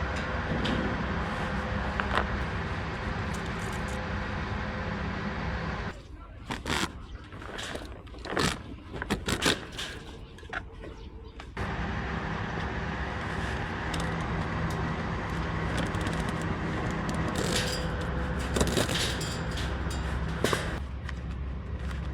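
Steady low background hum. From about six to twelve seconds in it drops away, and scattered clicks and scrapes of rope and tarp being handled stand out.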